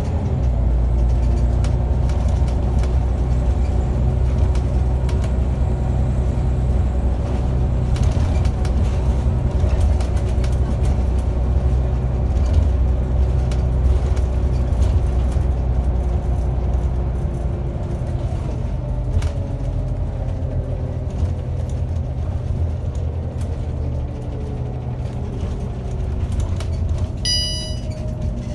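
Scania OmniCity bus heard from inside the passenger cabin on the move: a steady low engine and road rumble with a faint whine drifting slowly in pitch. A short electronic beep sounds near the end.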